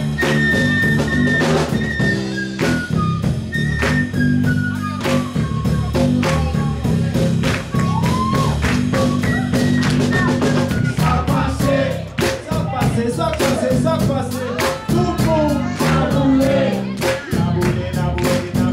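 Live band music: a flute solo, played close to a handheld microphone, its melody stepping downward over bass and drums.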